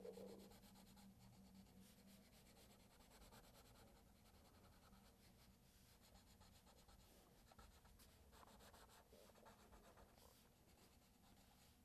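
Faint scratching of a wax crayon rubbed back and forth on easel paper, colouring in a drawing.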